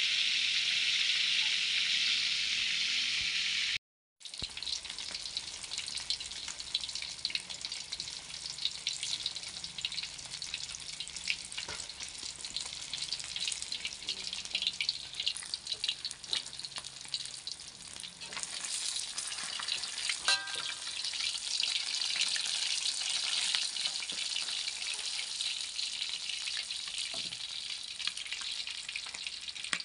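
Red arowana steaks deep-frying in hot oil in a wok: a constant sizzle peppered with many small crackles and pops. A steady hiss fills the first few seconds, then breaks off briefly before the crackling frying.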